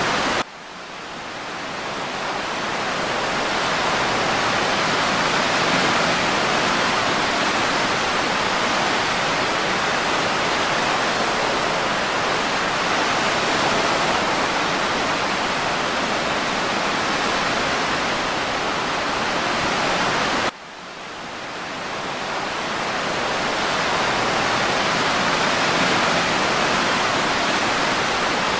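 Steady, even rushing noise of an ocean-waves-and-breeze ambience track, more like smooth pink noise than distinct breaking waves. It drops suddenly twice, about half a second in and about twenty seconds in, and each time swells back up over a few seconds.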